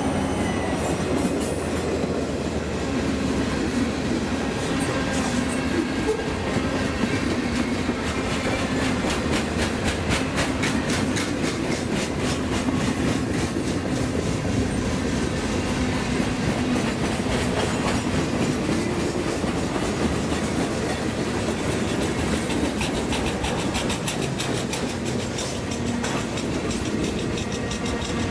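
Freight cars rolling past at close range: steel wheels clicking over rail joints over a steady rumble and rattle of the passing train.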